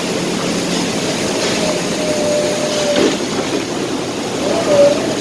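Steady mechanical din of slaughterhouse crate-handling machinery beside a loaded poultry transport truck. A thin high squeal sounds for about a second around two seconds in and again briefly near the end, with a light knock about three seconds in.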